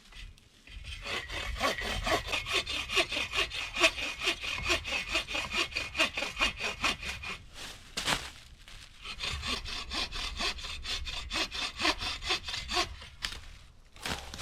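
Hand saw cutting through wood with quick, even back-and-forth strokes. The sawing stops briefly about eight seconds in, then resumes.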